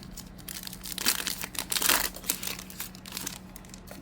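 A trading card pack wrapper being torn open and crinkled in the hands, in irregular rustling bursts, loudest about a second in and again near the end.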